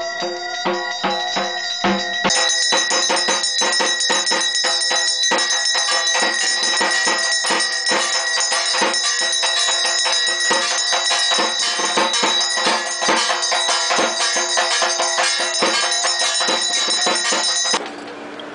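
Hand bell rung rapidly and without a break during puja worship: a steady metallic ring under dense jingling strikes that stops abruptly near the end.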